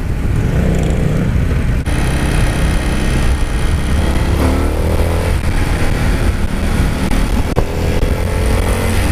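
Indian FTR 1200's V-twin engine running under way, heard from the rider's seat. About four seconds in its pitch rises as it accelerates, and it climbs again near the end.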